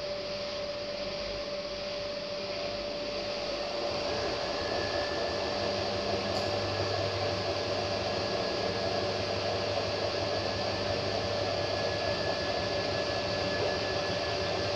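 Hotpoint front-loading washing machine running: a steady mechanical whine, joined about four seconds in by a deeper hum and a thin higher tone as it gets slightly louder.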